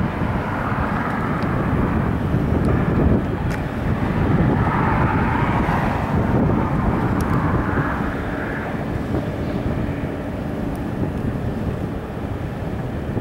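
Diesel locomotive at the head of a loaded coal train, running with a steady low rumble and drone as it approaches.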